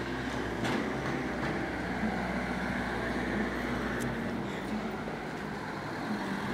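Street traffic noise with a motor vehicle engine running steadily close by; a minivan drives past near the end.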